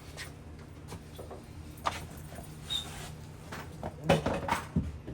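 Scattered light knocks and clicks of hand tools and hardware being handled during repair work, with a cluster of louder knocks about four seconds in, over a steady low hum.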